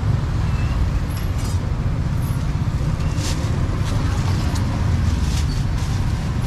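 Steady low rumble of street traffic, with a few short clatters about a second, three seconds and five seconds in.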